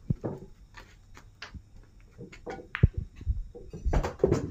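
Pool balls and cue clicking on the table: a few sharp knocks, the loudest a little under three seconds in.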